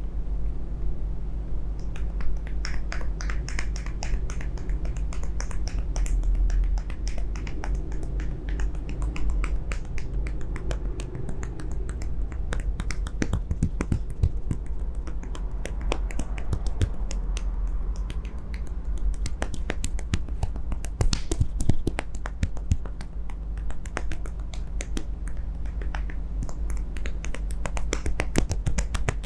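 Fingertips and hands tapping and lightly slapping the skin during a face and head massage: many quick, dense clicks that begin about two seconds in. A steady low hum sits underneath.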